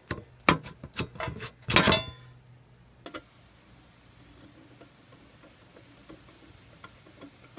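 Sharp metallic taps and clinks as the knockouts in the sheet-metal base of a TriStar charge controller are struck and knocked out: several quick hits in the first two seconds, the last and loudest ringing briefly. After that only a faint low hum and an odd small click.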